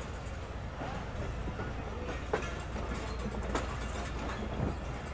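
Passenger train at the platform: a steady low rumble with a few sharp knocks in the second half, in the manner of rail coaches clanking on the track.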